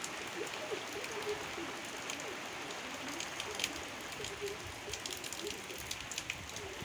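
Steady rain falling on garden foliage and wet ground, with scattered sharp drop sounds that grow more frequent near the end.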